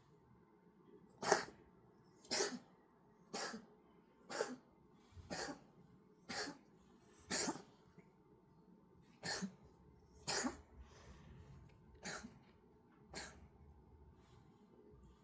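A cat coughing in a long fit: about a dozen short, sharp coughs roughly once a second, with a brief pause partway through, stopping about two seconds before the end.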